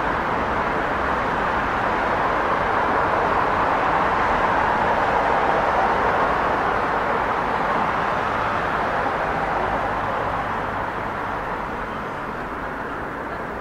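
Busy city street traffic: a steady rush of vehicle noise that swells to a peak about halfway through, then slowly fades near the end.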